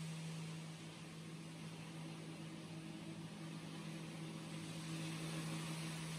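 Steady low hum of a stone-cutting machine's motor over the even hiss of cooling water spraying onto the stone block.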